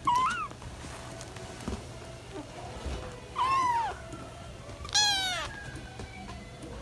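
British Shorthair kittens, almost five weeks old, mewing: three short, high-pitched mews that rise and fall, the last one the loudest.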